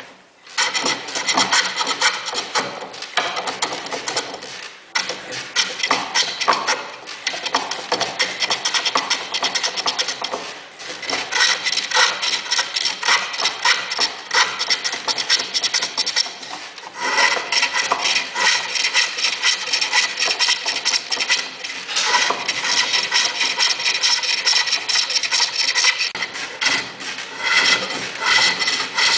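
Wood being turned on a lathe, a hand tool cutting the spinning workpiece with a continuous scraping sound. It breaks off briefly about five, eleven and seventeen seconds in.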